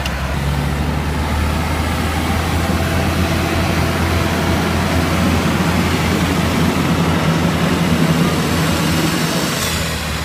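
Diesel tractor engines, a Farmtrac 6065 among them, running flat out under heavy load as the tractors pull against each other on a chain in a tug-of-war: a loud, steady, deep drone that swells slightly near the end.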